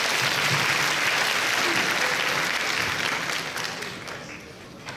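Audience applauding, dying down over the last second or so.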